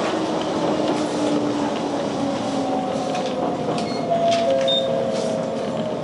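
Electric commuter train running on the rails, heard from inside the front of the car: a steady rumble with a few light clicks, and a motor tone slowly falling in pitch as the train slows toward a station.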